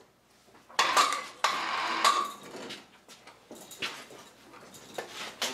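Steel end cap of a large hydraulic cylinder being worked off the barrel: metal scraping and ringing for about a second and a half, then scattered metallic clinks and knocks as the cap is handled.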